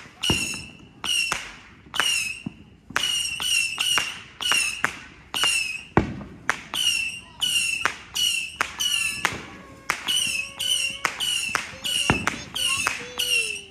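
Consumer firework firing a rapid string of shots, two to three a second. Each is a sharp crack followed by a short whistle that falls slightly in pitch.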